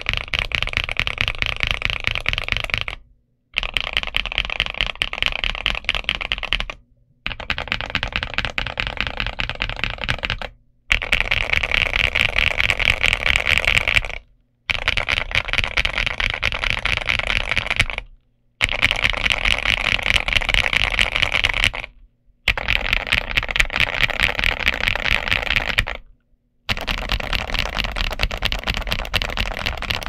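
Fast typing on a Zuoya GMK87 mechanical keyboard with MMD Holy Panda V3 tactile switches and XVX Damaged Mecha dye-sub Cherry-profile keycaps: a dense clatter of keystrokes in runs of three to four seconds, broken by brief pauses about eight times.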